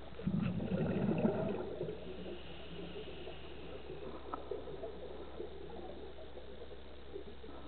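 Scuba regulator exhaust bubbles gurgling underwater in a burst lasting about a second and a half near the start. After that comes a steady underwater hiss with faint scattered crackles.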